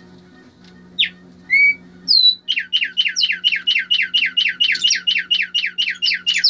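Caged tumbayeguas songbird singing: a few separate whistled notes, then a fast run of repeated down-slurred notes at about five a second that carries on to the end.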